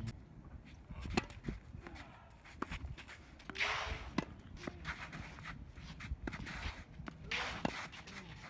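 Tennis balls popping off racket strings and bouncing on a hard court, a sharp pop every second or so, with shoes scuffing on the court and two longer rushing sounds, about four and seven and a half seconds in.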